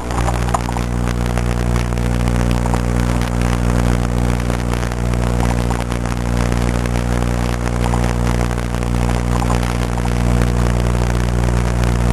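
Small engine of an RC car, heard from on board, idling steadily at one even pitch with the car at rest.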